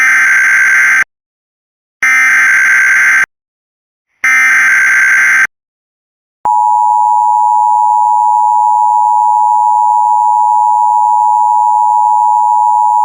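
Emergency Alert System SAME header: three bursts of digital data tones, each about a second long with a second of silence between them. About six seconds in they give way to the steady two-tone EAS attention signal. Together they announce an incoming alert, here a severe thunderstorm warning.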